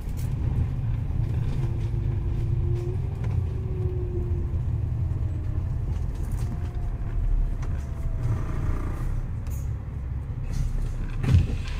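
Cabin sound on the upper deck of a moving double-decker bus: a steady low rumble of engine and road noise. A faint whine rises slightly a couple of seconds in and fades, and a single knock comes near the end.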